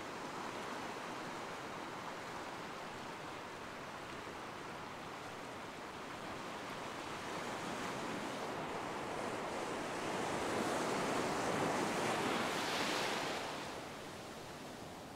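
Surf washing in over the shallows of a sandy beach. The wash grows louder through the second half, peaks in a hissing rush, then drops away near the end.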